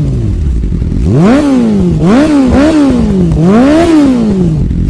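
Motorcycle engine revved repeatedly, its pitch climbing and falling about four times, with a steady low rumble under it.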